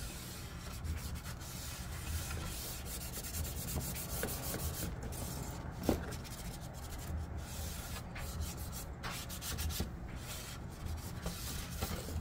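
An alcohol wipe scrubbed back and forth over a body scoop's mounting surfaces, cleaning them for 3M tape. It is a continuous, uneven rubbing, with one sharper squeak about halfway through.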